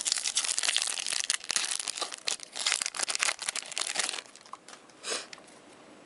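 Wrapper of a hockey card pack crinkling and tearing as it is opened: a dense crackle that stops about four seconds in, then one brief rustle a second later.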